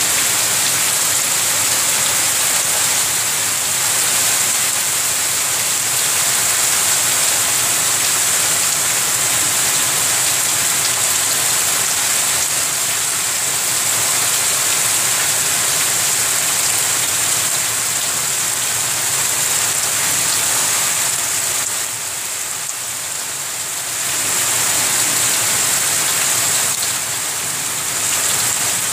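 Heavy rain pouring steadily onto a flooded yard of standing water, an even hiss that dips a little quieter for about two seconds roughly three quarters of the way through.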